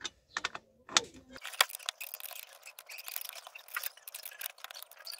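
Quick, irregular metallic clicks and taps of a 10 mm wrench working a nut loose on the gas pedal mount.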